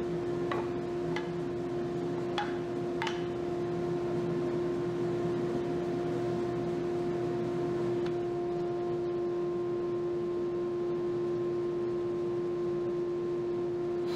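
Electric power tool motor running at a steady high pitch, with a few light clicks in the first three seconds.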